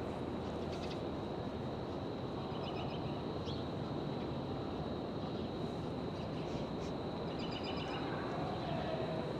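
City street ambience: a steady hum of distant traffic, with a bird chirping in quick runs of short high notes about two and a half seconds in and again near eight seconds. A thin steady high tone sits above the hum.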